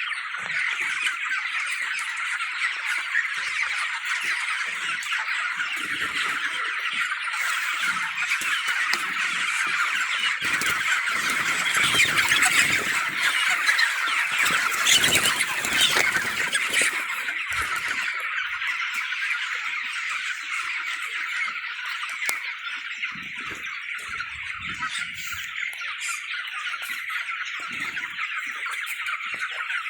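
A large flock of chickens calling all at once, many overlapping cheeps and squawks merging into one dense, continuous chatter that grows louder in the middle.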